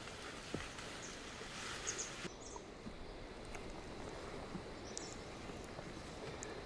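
Faint outdoor background with a few small clicks and taps. A high hiss stops abruptly a little over two seconds in.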